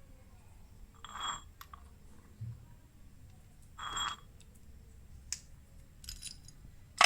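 Two short metallic scrapes with a faint ringing ping, about three seconds apart, then a few light clicks and a louder clatter at the end: small metal parts and tools handled while a refrigerator door hinge is being fitted.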